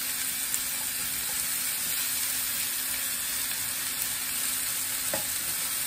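Oil-coated, seasoned fajita vegetables sizzling steadily on a hot griddle set to about 350°F.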